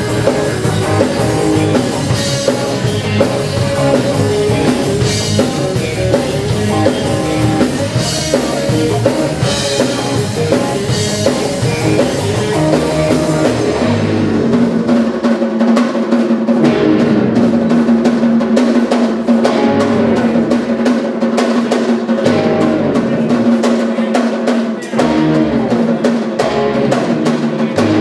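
Live rock band playing an instrumental: electric bass, drum kit, keyboard and electric guitar, with the drums to the fore. Cymbal crashes land every few seconds at first; from about halfway the cymbals fall away and a single held note sounds under busy snare and drum hits.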